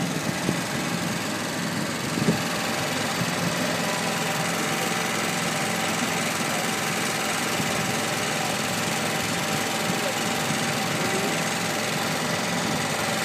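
Steady running noise of a small passenger vehicle in motion, an even engine-like drone with a faint steady whine in it and a couple of light knocks in the first few seconds.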